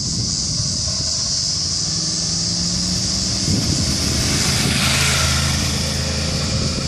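2013 Yamaha R1's crossplane inline-four, without the exhaust baffle kit fitted, running as the sportbike rides up, passes close and pulls away. Its pitch drops about halfway through as it goes by.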